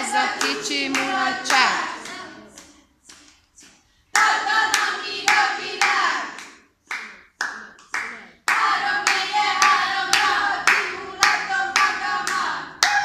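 A group sings a clapping song together, clapping hands in time at about two claps a second. Twice the singing drops out and only a few separate claps are heard before it starts again.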